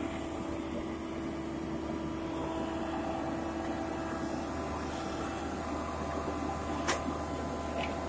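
Horizontal directional drilling rig running steadily, its engine and hydraulics making a constant drone with a held tone that stops about five and a half seconds in. A single sharp knock comes about seven seconds in.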